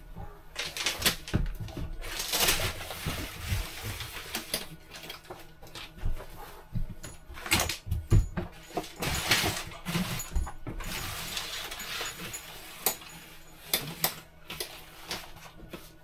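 Fabric curtains rustling and crumpling, with clicks from the curtain slides and track as the curtains are pulled out of their rails.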